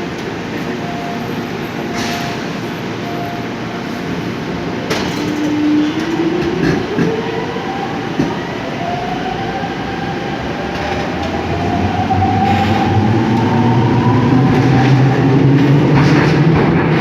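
Seoul Subway Line 5 train pulling away and gathering speed: the electric traction motors whine in several tones that rise in pitch, over rail running noise that grows louder. There are a few sharp clicks in the first seconds.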